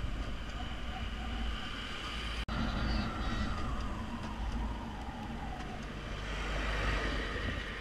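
Motorcycle running along the road, recorded from the bike itself. There is a brief dropout about two and a half seconds in. After that the engine note falls steadily as the bike slows down.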